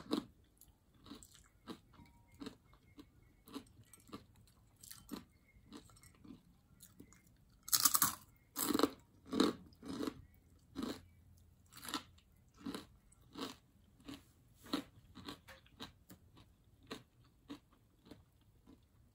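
Close mouth sounds of chewing crunchy breaded fried meat, about two crunchy chews a second, with a burst of louder crunching about eight seconds in.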